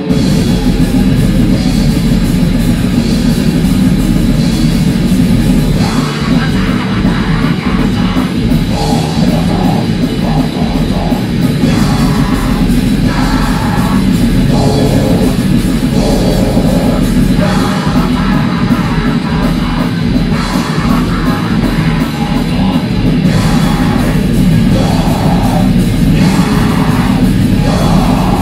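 Grindcore band playing live at full tilt: distorted guitar, bass and drums come in together right at the start, with shouted vocals from about six seconds in.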